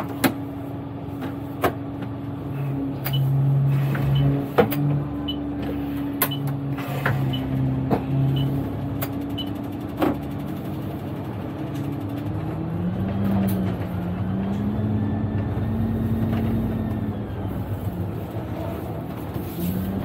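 Alexander Dennis double-decker bus engine running at a steady idle hum with scattered clicks and rattles from the cab. About twelve seconds in, the engine note begins to rise and fall as the bus drives.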